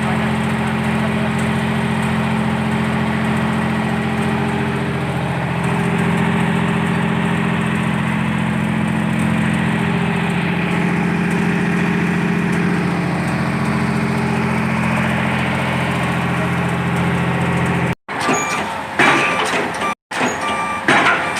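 A diesel engine, most likely the crane's, running steadily under a little load, its pitch shifting slightly as it works. After two abrupt cuts near the end, a few sharp knocks.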